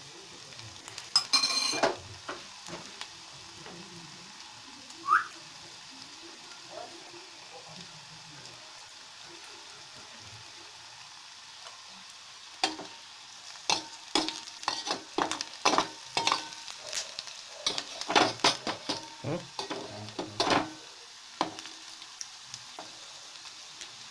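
Sliced onions sizzling in hot oil in a steel pot while a steel spoon stirs them, clinking and scraping against the pot. There is a ringing clink of the spoon on the pot about a second and a half in, and a fast run of spoon clatter through the second half.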